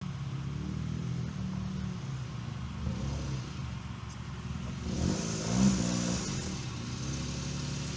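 Suzuki Jimny JB23's small three-cylinder engine running steadily, with a brief louder, rougher noise and short pitch wobbles about five to six seconds in.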